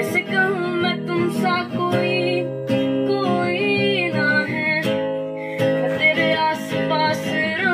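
Background song with a strummed acoustic guitar and a singing voice.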